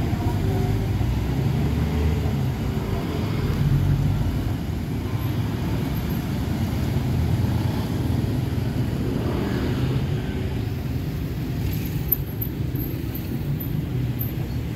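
Road traffic crossing the railway tracks: motorcycle and car engines running and passing in a steady low mix.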